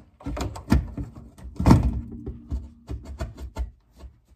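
Plastic EVAP charcoal canister box knocking and clicking against its mounting bolts and the car's underbody as it is worked over two bolts, an uneven run of knocks with the loudest about a second and a half in.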